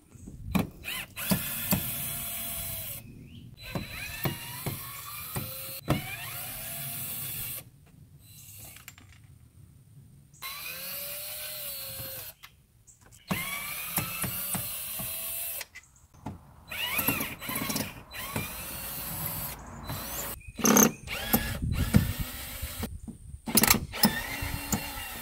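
Cordless drill/driver motor running in repeated bursts of a few seconds, its pitch rising and falling as it backs out old screws from a metal door frame. Sharper clicks and knocks come near the end.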